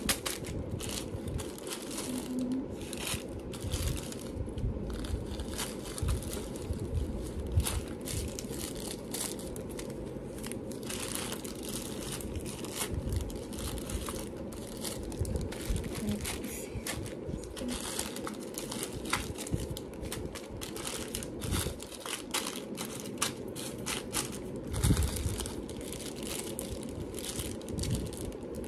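Small packets of jewelry findings crinkling and rustling as they are handled and sorted, with many light clicks and taps, over a steady low background hum.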